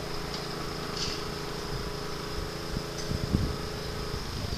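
Small motor of a ride-on miniature locomotive running with a steady hum, which stops shortly before the end, with a few light knocks about three seconds in.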